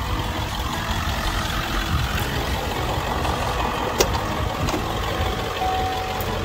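Ford 7.3L Powerstroke turbo-diesel V8 idling steadily. A sharp click about four seconds in as the driver's door latch is opened, and a steady electronic beep starts near the end.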